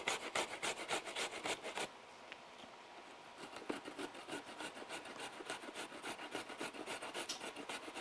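An apple being shredded by hand on a handheld grater: quick rasping back-and-forth strokes, about five a second. They stop briefly about two seconds in, then resume more lightly.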